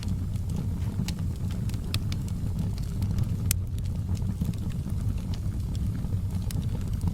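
Wood fire burning in a fireplace: a steady low rumble with scattered crackles and pops, a sharper pop about three and a half seconds in.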